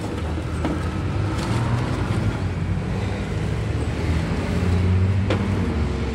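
Road traffic: a motor vehicle's engine running close by as a steady low rumble, swelling about five seconds in, with a single short click just after.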